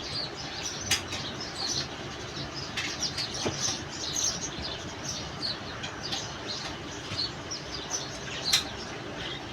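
Small birds chirping in short, scattered calls over a steady low hiss, with a few sharp clicks, the loudest about eight and a half seconds in.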